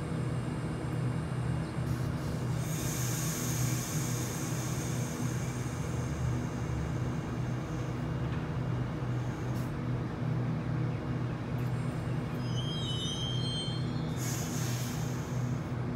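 Steady electrical and mechanical hum of a standing Sydney Trains Waratah electric train, with hisses of air twice, about three seconds in and again near the end.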